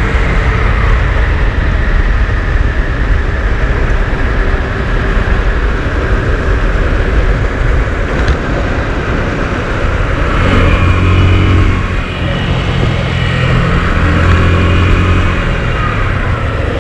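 Motorcycle engine running while riding, under a steady rush of wind and road noise. The engine note comes up strongly twice, about ten seconds in and again around fourteen seconds.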